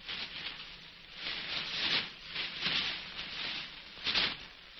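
Crumpled paper rustling and crackling in irregular swells as it is kicked and trampled underfoot, over the steady hiss of an early sound-film track.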